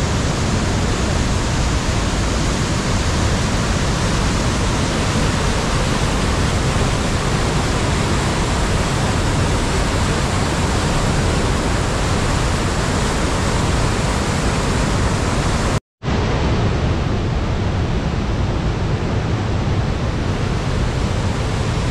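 Waterfall: a loud, steady rush of falling water, broken once by a split-second gap about sixteen seconds in.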